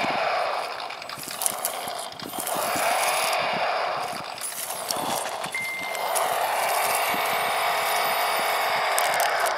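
PRC QX-4 mini rock crawler driving over rocks: its onboard truck engine sound module revving up and easing off with the throttle, pitch rising and falling several times, over the whine and clicking of its small electric motor and gears.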